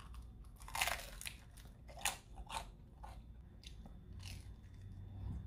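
A person biting into and chewing crisp pizza crust, with a few separate crunches.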